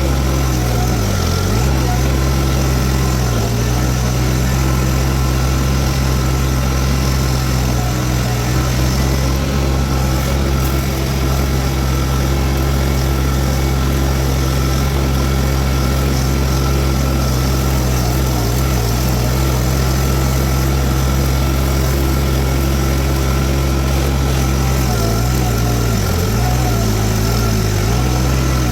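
Toro TX1000 mini skid steer's diesel engine running steadily at high throttle while it drives a Virnig V20 brush mower. The engine pitch dips briefly about a second in and again near the end, as the engine comes under load.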